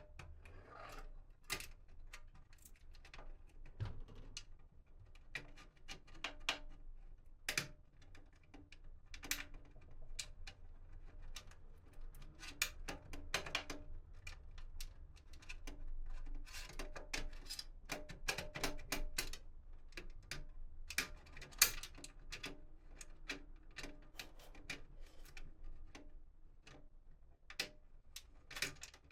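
Irregular clicks, taps and rustling of hands handling computer parts and packaging.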